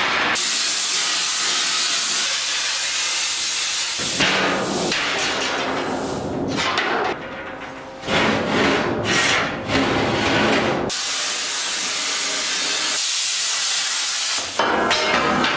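Cutting torch hissing steadily as it cuts steel plate, for about the first four seconds and again for a few seconds near the end. Between these, steel plate scrapes and knocks as it is shifted and measured.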